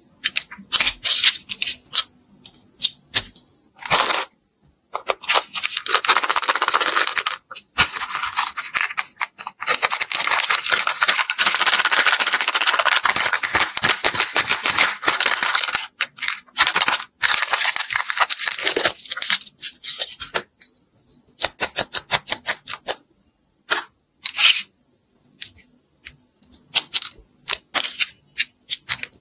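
Hands handling modelling clay and its plastic tools: scattered clicks and taps, with long stretches of rough tearing-like noise, the longest from about ten to sixteen seconds in, while the clay is pulled apart.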